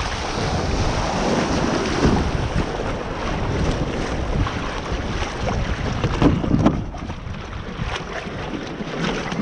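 Wind buffeting the camera microphone over water rushing and lapping along a sailing kayak's hull as it moves through shallow water. A few dull knocks come through, the loudest a little past the middle.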